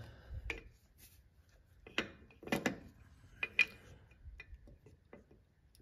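Light metallic clicks and clinks of a brake pad's spring clip and steel backing plate being worked into a rear disc brake caliper: a few scattered taps, the sharpest about two to four seconds in.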